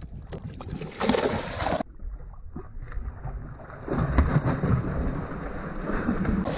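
Water sloshing against the boat with wind on the microphone. From about four seconds in, louder splashing as a hooked cero mackerel thrashes at the surface while it is being gaffed.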